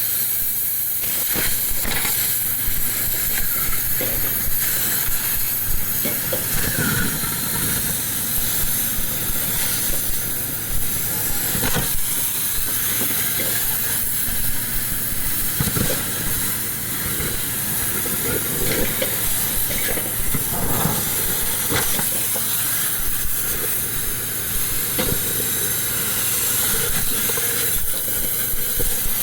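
Steady loud hiss over a low steady hum in a scrap-metal workshop, with scattered short metallic knocks.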